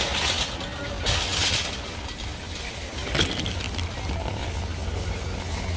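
Empty wire shopping cart pushed over concrete: wheels rolling and the metal basket rattling, with one sharper clink about three seconds in.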